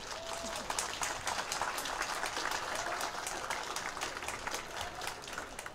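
Audience applauding: many hands clapping in a dense patter that eases off slightly near the end.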